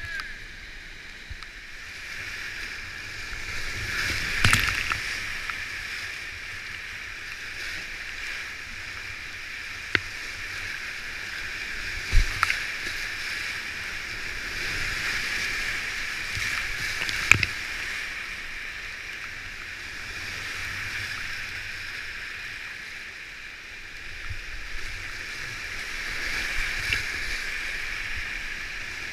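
Steady rush of high-water whitewater around a kayak running a creek rapid, with a few sharp knocks and splashes scattered through.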